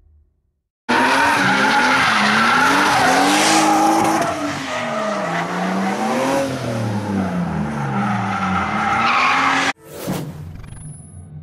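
BMW E36 engine revving up and down repeatedly as the car drifts, with tyres squealing, starting abruptly about a second in and cutting off sharply near the end. A short whooshing transition sound follows.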